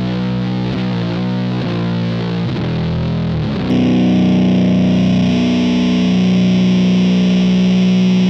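Electric guitar played through a Does It Doom Elder God fuzz pedal (a silicon Fuzz Face and a Green Russian in one) into a clean amp channel. It plays a thick, fuzzy riff of changing notes, then about three and a half seconds in a held chord rings out steadily, brighter and slightly louder.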